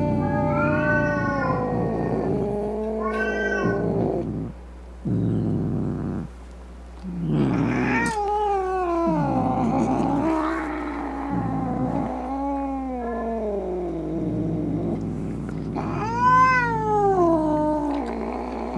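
Angry domestic cat meowing in long, wavering calls one after another, with two brief pauses in the first half.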